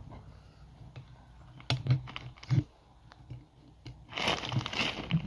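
Steel tire spoons being levered between a soapy motorcycle tire bead and the rim: a few clicks and knocks about two seconds in, then a stretch of crunching and rustling near the end.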